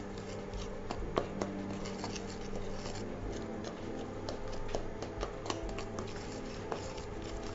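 Wooden spatula stirring a dry mix of icing sugar, cornstarch and ground almond in a glass bowl: soft scraping with irregular light ticks of the spatula against the glass, over a steady low hum.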